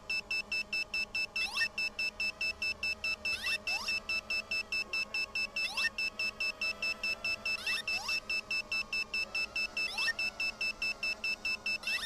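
High electronic beeping, about four short beeps a second, with a short rising whistle about every two seconds.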